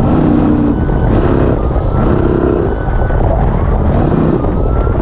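Off-road race vehicle engine running hard under a heavy low rumble, its pitch climbing several times as it revs.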